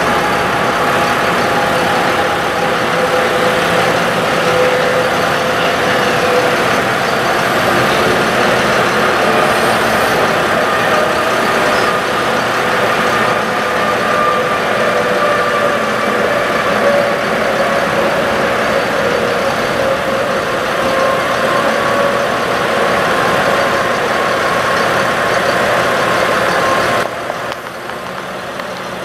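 Ford F-750 diesel truck engine running with the PTO engaged, driving the hydraulic pump for the aerial lift boom, with a whine that wavers in pitch as the boom moves. The sound drops suddenly in level near the end.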